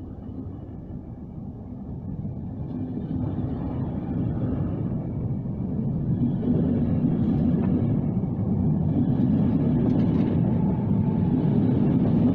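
Trenord TSR double-deck electric multiple unit running along the platform, a rumble of wheels and running gear that grows steadily louder as the carriages pass close by.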